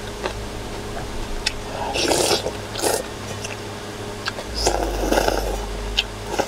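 A person slurping thin somyeon noodles in cold anchovy broth off a spoon. There are noisy slurps about two seconds in, a short one near three seconds, and a longer one around five seconds, with a few small clicks in between.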